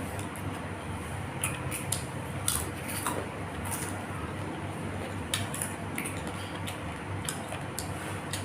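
Close-up eating sounds: irregular sharp clicks and crunches of chewing, with light clinks of dishes, over a low steady hum.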